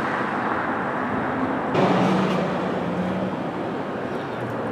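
Steady car noise, engine and road rumble, with a slight shift about two seconds in.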